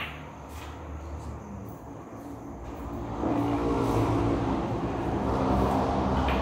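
A motor vehicle engine running, getting louder about three seconds in and then holding a steady drone, over a constant low hum.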